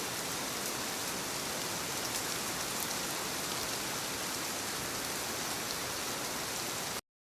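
Steady rush of falling, splashing water, even and unbroken, cutting off suddenly near the end.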